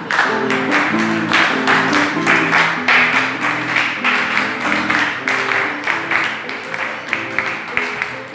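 Argentine gato folk music playing, led by a strummed guitar with a steady, regular beat.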